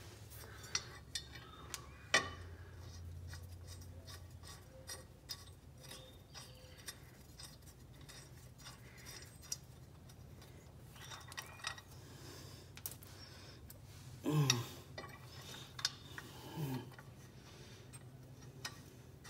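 Light metallic clicks, taps and rattles of a steel hydraulic pedal return bracket and its bolts being handled and fitted by hand, over a steady low hum. Near the end come two short, louder low sounds that drop in pitch.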